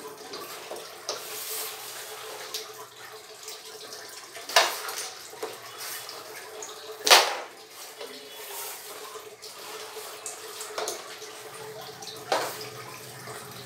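Water splashing and sloshing, with a few sharper, louder splashes about four and a half, seven and twelve seconds in, over a faint steady hum.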